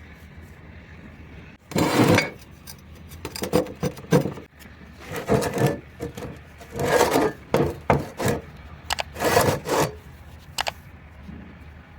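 A hand tool scraping or filing metal in irregular strokes, about eight in all, each under half a second long.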